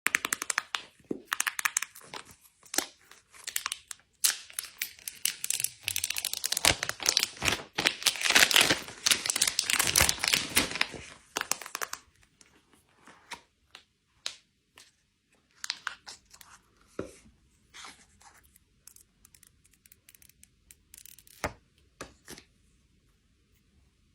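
Packaging of an iPhone 12 Pro Max box being torn and crinkled open, a dense crackling that lasts about twelve seconds. After that come scattered light taps and clicks as the box and phone are handled, dying away near the end.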